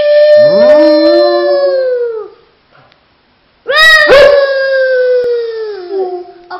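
A dog howling: two long howls with a pause of about a second and a half between them, each sliding down in pitch as it fades.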